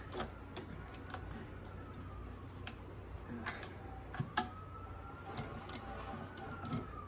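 Scattered light mechanical clicks and ticks from a Consew 369RB-2 double-needle sewing machine as its split needle bar is worked to engage, with one sharper click about four and a half seconds in. A faint whine slowly rises and falls in pitch underneath.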